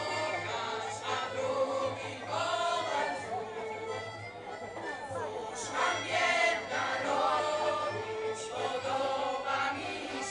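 A choir singing a song together, phrase after phrase with some long held notes.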